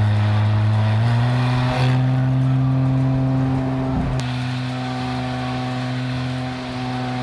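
Porsche 718 Spyder RS's naturally aspirated 4.0-litre flat-six running under way at steady revs. Its pitch steps up about a second in and dips briefly about four seconds in.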